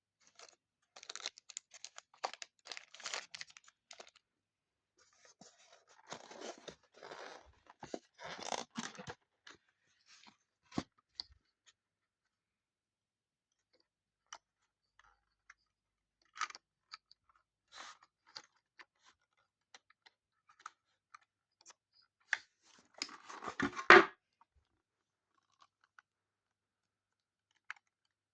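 Crackling and rustling of plastic packaging being handled close to the microphone, in bursts separated by pauses, with scattered small clicks and one louder crackle near the end.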